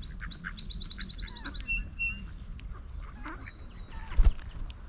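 Small songbird calling a quick run of high notes, about ten a second, then two lower notes, with ducks quacking in the background. A single sharp knock about four seconds in.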